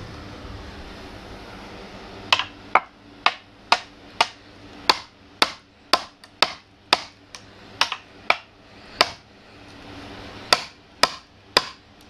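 Small sledge hammer striking metal wedges driven into an Osage orange log to split it: a run of sharp, ringing metal-on-metal strikes, about two a second, starting about two seconds in, with a brief pause near the end.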